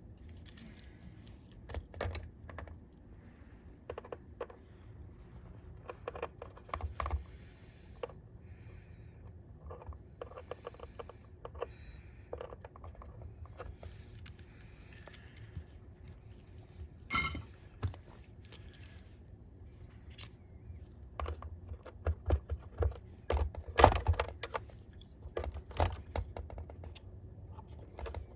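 Irregular small clicks, taps and knocks of a soldering iron, solder and plug parts being handled on a workbench while XT60 connector cups are pre-tinned, with a louder knock about two-thirds of the way through and a busier run of knocks near the end.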